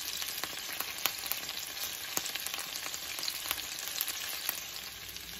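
Chicken boti kebab pieces on bamboo skewers shallow-frying in oil in a nonstick pan: a steady sizzle with many scattered crackles and pops.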